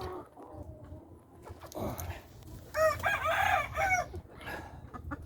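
A game rooster crowing once, about three seconds in and lasting over a second; it is the loudest sound, over a low background.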